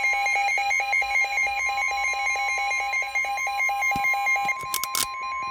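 NOAA Weather Radio alert for a severe thunderstorm warning: a steady warning alarm tone near 1 kHz, with a rapid pulsed alarm beep of about seven beeps a second sounding over it. The beeping stops just before five seconds in, with a few sharp clicks, and the steady tone carries on alone.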